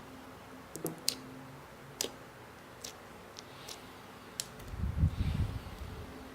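A string of sharp, scattered clicks and pops, about eight over four seconds, then low rumbling handling noise in the last two seconds.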